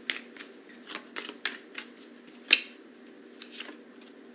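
Tarot cards being handled and laid down: a scattered series of light clicks and taps, the loudest about two and a half seconds in, over a faint steady hum.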